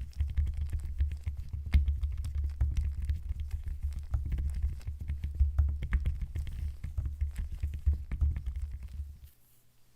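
Unboxing handling noise: irregular clicks, taps and low thumps of packaging and accessories being handled close to the microphone. It stops abruptly about nine seconds in.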